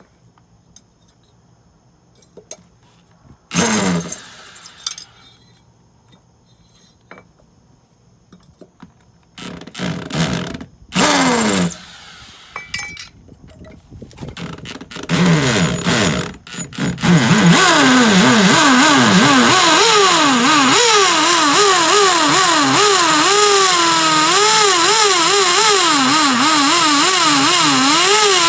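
DeWalt hammer drill drilling a hole: a few short trigger bursts that wind down, then, about two thirds of the way in, a long continuous run with the motor pitch wavering up and down as the bit works under load.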